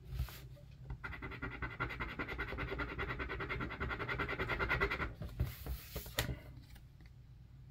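A coin scraping the coating off a scratch-off card in rapid back-and-forth strokes, stopping about five seconds in, followed by a few light clicks.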